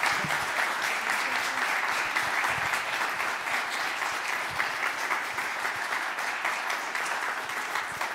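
Audience applauding, many hands clapping at once, slowly tapering off.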